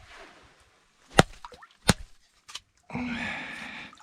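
A just-landed burbot slapping on the ice: two sharp knocks under a second apart, then about a second of rustling, scraping noise.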